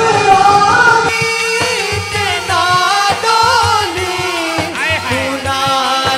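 Devotional manqabat singing: a voice holding and bending long, ornamented notes over a steady rhythmic backing.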